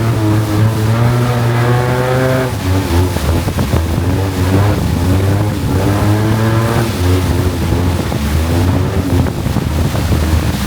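Longtail boat engine running loud, revving up twice: the pitch rises for about two seconds at the start and again in the middle, over a steady low drone.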